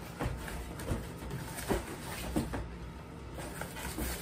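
Large cardboard box being pulled open by hand: scattered knocks and rustles of the cardboard flaps being worked loose.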